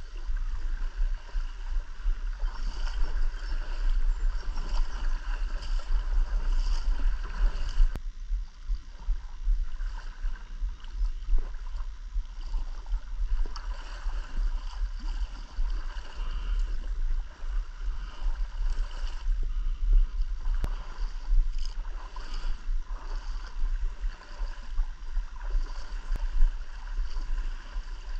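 River water sloshing and splashing around a wader's legs, with a strong, uneven low rumble. A steady, faint high buzz sits in the background.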